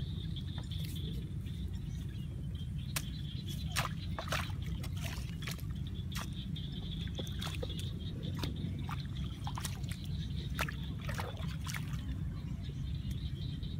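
A hoe blade chopping and scraping into wet mud and shallow water, in a run of irregular strikes and splashes, over steady sloshing and trickling water. A steady high-pitched hum runs underneath.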